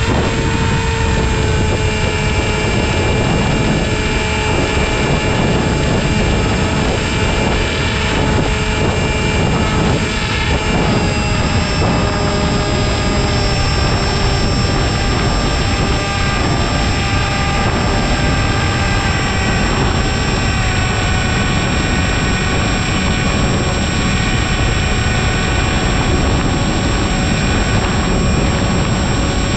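Aeroscout RC airplane's electric motor and propeller whining steadily in flight over heavy wind rush, heard from on board. The whine shifts pitch slightly a few times.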